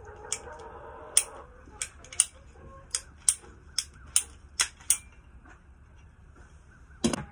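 Ratcheting PVC pipe cutter clicking about ten times over five seconds as its handle is squeezed in strokes through 1/2-inch PVC pipe, followed by one louder sharp snap near the end.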